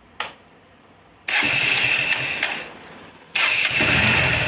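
A click, then a motorcycle engine being started: the first attempt runs for about a second and a half and dies away, and a second start about three seconds in catches and keeps running. The valve clearances have just been adjusted, and the engine runs without the tappet tick.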